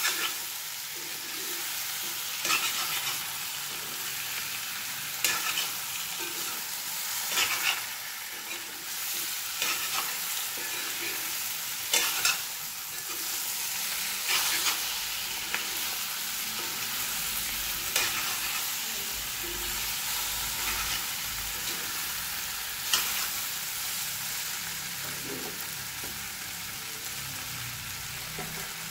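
Chicken and jackfruit pieces frying in a cast-iron kadai with a steady sizzle, while a wooden spatula stirs and scrapes them against the pan about every two to three seconds. The stirring stops about five seconds before the end, leaving only the sizzle.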